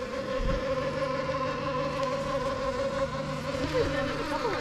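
Golf cart motor running as the cart slowly tows a loaded boat trailer: a steady, even whine, with a lower hum joining about half a second in.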